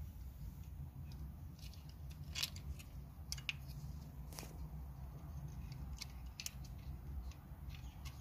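A scattering of small sharp clicks and light scrapes as an LED bulb is handled and pushed into the metal contacts of a car's map light housing, over a low steady hum.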